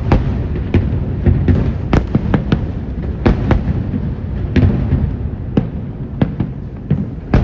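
Aerial fireworks going off in a rapid, irregular barrage: many sharp bangs, several a second, over a continuous deep rumble of shell bursts.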